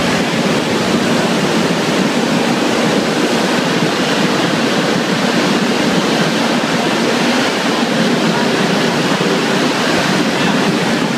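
Loud, steady noise inside the fuselage of a B-24 Liberator during landing: its four Pratt & Whitney R-1830 Twin Wasp radial engines running, mixed with the slipstream rushing past the open waist gun windows.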